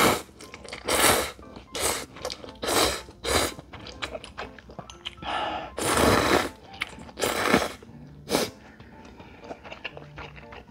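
A person slurping instant ramen noodles from a bowl in a series of about eight slurps, the longest about five to six seconds in. Quieter chewing follows near the end.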